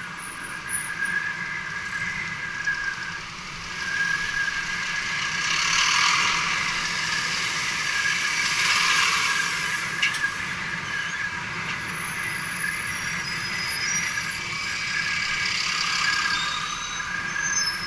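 Wind rush and city traffic noise picked up by a helmet-mounted action camera on a moving bicycle, with double-decker buses and cars close by. The noise swells twice, around six and nine seconds in, and there is a sharp click about ten seconds in.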